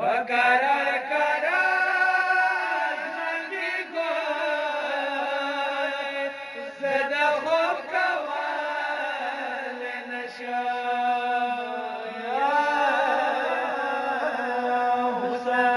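Male voice chanting a Pashto noha, a Shia lament, in long bending melodic phrases over a steady held drone.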